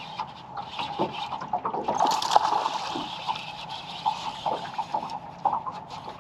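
Hooked largemouth bass thrashing and splashing at the water's surface, with a louder burst of splashing about two seconds in that lasts around a second and a half.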